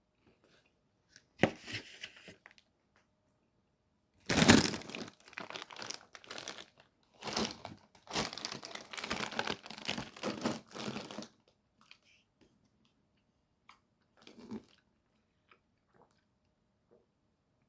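Crinkling and tearing of a food wrapper, handled while eating a Chipotle burrito, in several bursts with quiet gaps; the longest burst runs through the middle.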